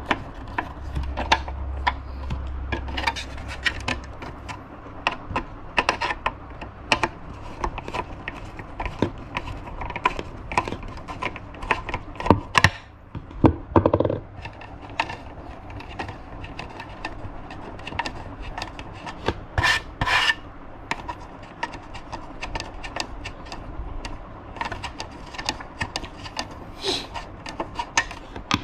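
Hands taking apart a plastic Yamaha LC135 tail light assembly: a screwdriver working at its screws, then the housing handled and the red lens worked loose. Many irregular clicks and knocks of hard plastic throughout.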